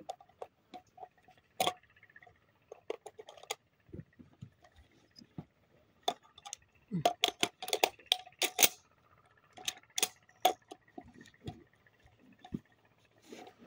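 Scattered clicks and metallic rattles of a 12-gauge shotgun being handled and readied, thickest about halfway through, over a faint steady high tone. No gunshot is heard.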